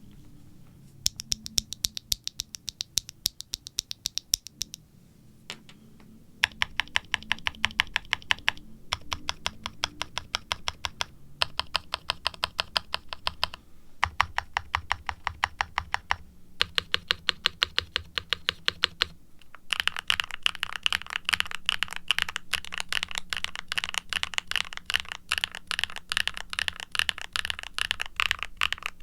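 Typing on a Novelkeys NK87 mechanical keyboard with HMX x Siliworks Nap linear switches, a carbon fiber plate and double-shot ABS keycaps, giving a soft clack. The keys are typed in short runs with brief pauses, then steadily and faster from about two-thirds of the way through.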